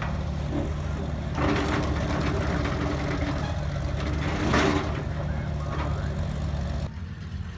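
A large engine running steadily at low speed with a deep, even hum, and a short noisy burst about four and a half seconds in.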